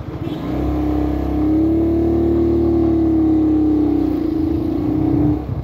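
Vento Lithium 190cc motorcycle's single-cylinder engine pulling away under throttle. Its note rises over the first second or two, holds steady with a slight dip, and drops off just before the end as the throttle closes.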